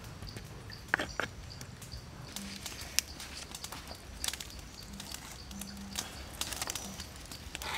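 Scattered small clicks and taps of hands handling stick-skewered chicken, over a steady quiet outdoor background.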